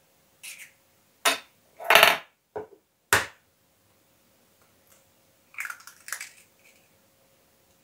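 Eggshells cracked against the rim of a bowl: a few sharp cracks about half a second apart, then a softer crackle near the end as a shell is pulled apart.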